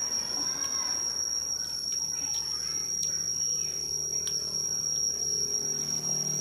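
Cricket singing a steady, unbroken high-pitched trill, with a few soft clicks of chopsticks and a spoon against dishes.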